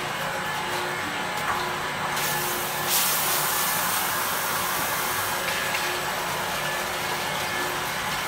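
Vacuum emulsifier mixer running, its agitator churning liquid in the vessel with a steady machine hum. A louder hissing rush swells about two seconds in and eases off about five seconds in.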